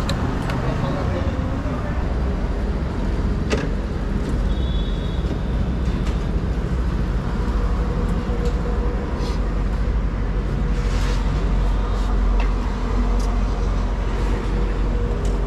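Steady low rumble of motor vehicles, with background voices and a few sharp clicks.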